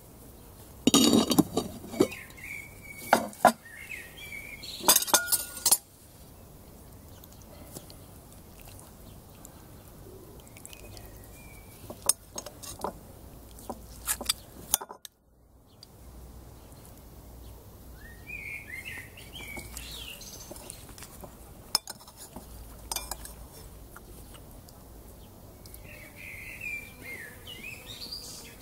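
Clanking of metal on cast iron as the pot lid is lifted off with iron lid-lifter tongs. Then come lighter clinks and scrapes of a metal spoon and fork in a ceramic bowl. Birds chirp briefly now and then.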